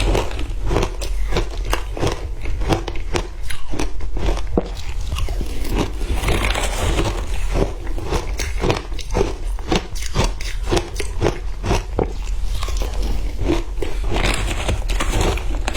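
Frozen matcha ice being bitten and chewed close to the microphone: rapid, sharp crunches, several a second, over a steady low hum.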